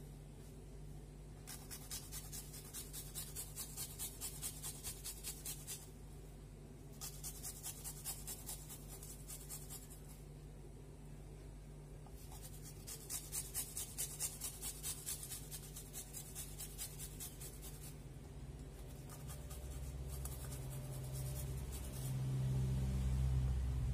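Garlic being grated on a flat metal hand grater: rhythmic scraping strokes, about two to three a second, in four runs with short pauses between them. A low hum comes up near the end.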